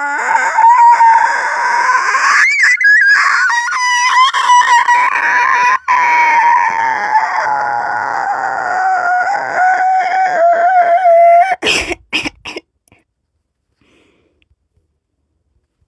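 A person's voice making a long, high-pitched creature noise whose pitch wavers and slowly sinks, held for about eleven seconds, followed by a few brief clicks.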